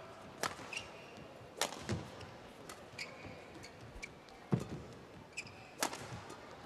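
A badminton rally: racket strings crack against the shuttlecock every second or so, with short shoe squeaks on the court floor and the thud of players' feet landing between shots.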